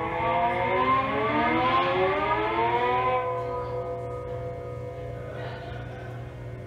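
Live experimental music: a sustained tone with many overtones rises in pitch over about three seconds, then holds steady and fades, over a constant low hum.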